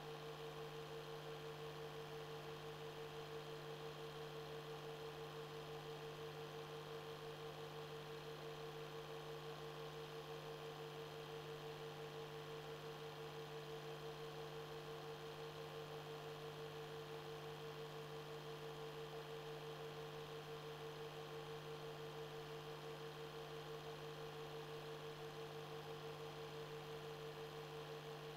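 Steady electrical hum with a high steady tone over faint hiss, unchanging throughout.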